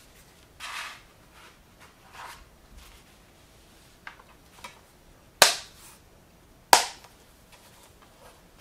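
Plastic DVD keep case being handled: soft sliding and rustling, a few light taps, then two sharp plastic clicks just over a second apart.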